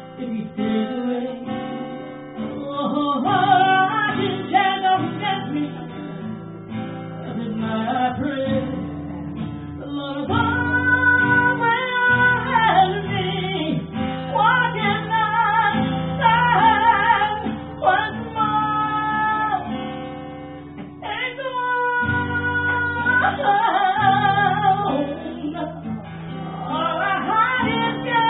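A woman singing a slow blues song while playing an acoustic guitar, holding several long notes with a wavering pitch.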